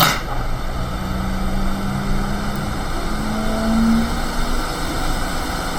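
Hot air rework station blowing steadily, a continuous rushing hiss of its fan and air stream, with a short click at the very start and a faint low hum that rises slightly in pitch about three to four seconds in.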